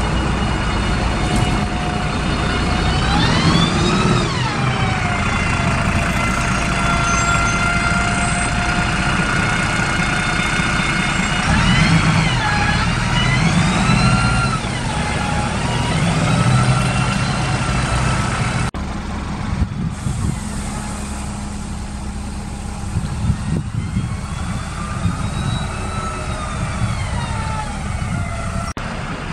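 Karosa diesel city buses, an articulated B961 among them, pulling away from the stop with a steady engine rumble. A whining engine note climbs and drops back several times as they accelerate.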